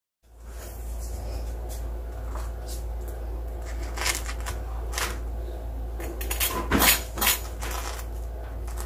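Chef's knife cutting through a deep-fried, breadcrumb-crusted bread square on a wooden cutting board: a series of crisp crunches and crackles, with knocks of the bread and blade on the board. The loudest crunches come a little before the end, over a steady low hum.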